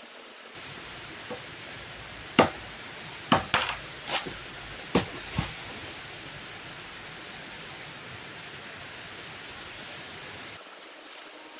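A run of sharp knocks and cracks, about six within three seconds, over a steady hiss.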